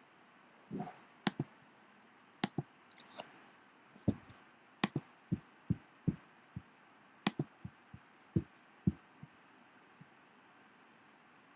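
Typing on a Mac laptop keyboard: irregular key clicks and soft thuds at an uneven pace, trailing off after about nine seconds.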